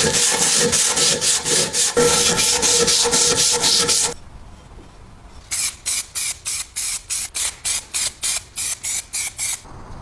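Rapid back-and-forth abrasive rubbing strokes, about four to five a second, like hand sanding or filing a part. It comes in two runs with a pause of about a second and a half between them.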